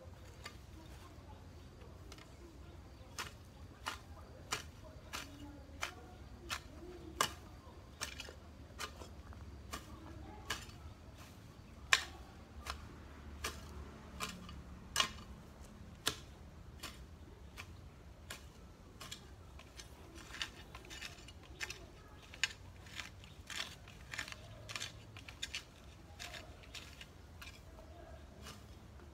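Grass being cut by hand with a sickle: a string of sharp snicks as the blade slices through stems, irregular, about one to two a second.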